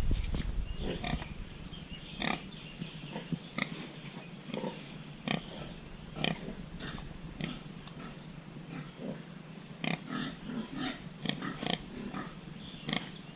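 Pig grunting in many short, irregular bursts.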